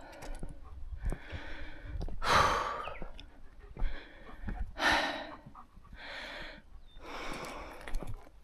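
Heavy, even breathing: about six long breaths, roughly one a second, with faint short clicks between them.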